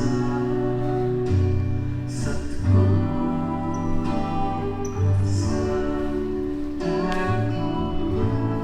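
Slow, gentle background music: sustained chords over a bass line that changes note every second or so, with a few sharper note attacks.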